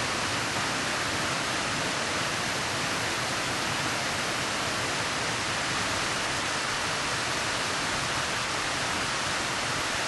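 Steady, even rushing hiss with no change in level and no other sound standing out.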